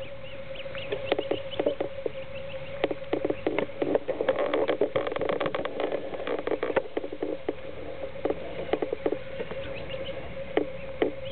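Greylag goose goslings peeping as the family feeds, many short sharp calls and clicks in quick clusters, over a steady hum.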